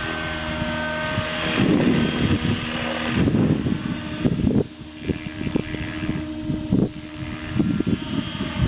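Electric RC helicopter (Align T-Rex 600E Pro) running at a steady pitch, a constant whine from its motor and rotors, with gusts of wind buffeting the microphone in loud irregular rumbles.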